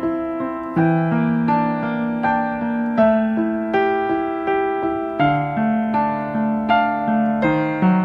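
Background piano music: a slow, gentle melody of struck notes, each fading away, over changing chords.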